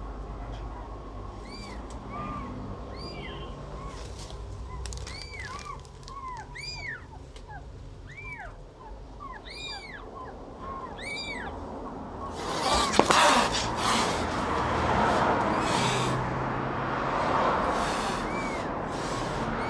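Newborn kittens mewing in short, high, rising-and-falling squeaks, many in quick succession while they nurse. About two thirds of the way through, loud rustling and handling noise with a sharp click takes over, and a few mews go on under it.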